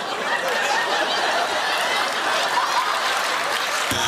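Studio audience laughing together, a dense, steady wash of crowd laughter.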